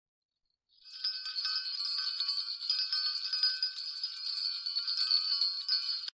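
Alarm clock bell ringing rapidly, starting about a second in and cutting off suddenly near the end as it is silenced with the snooze button.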